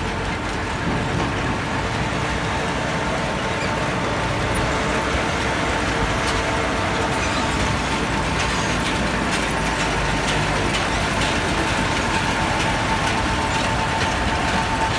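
Erkunt Kıymet 90 tractor's diesel engine running steadily under load as it pulls a trailer of about 16 tonnes of sugar beet, with a steady whine above the engine.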